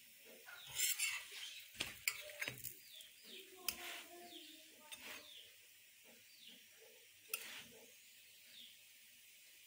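Paratha frying in ghee on an iron tawa: a faint steady sizzle, with scattered scrapes and knocks as it is pressed and moved on the pan, most of them in the first four seconds and one more near the end. Faint short falling chirps recur in the background.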